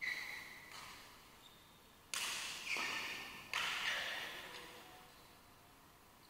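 Badminton rally: several sharp racket-on-shuttlecock hits, the loudest cluster in the middle, each trailing off in a long echo of a large hall.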